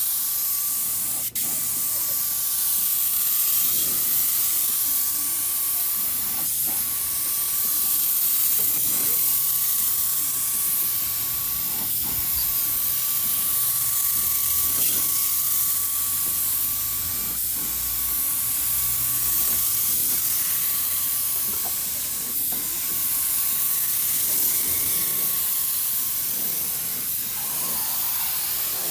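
High-pressure spray hissing steadily over a steady whine, cut off briefly about a second in.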